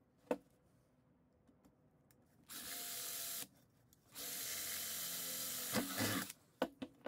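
Cordless drill boring a small hole through a hinge's screw hole into a thin sheet-metal cylinder, in two runs: a short one of under a second, then a longer one of about two seconds. A few sharp clicks follow near the end.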